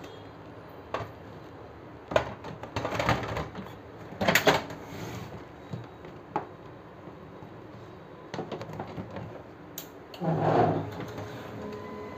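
Plastic knocks and clicks of an HP LaserJet M1005 MFP's scanner unit and housing being handled and pressed into place on the printer body, with a heavier thump about ten seconds in. Just after that, a faint steady high tone comes in.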